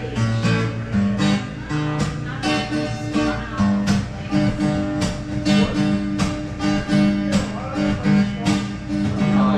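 Guitar strummed in a steady rhythm, about two strokes a second, its chords ringing on between strokes.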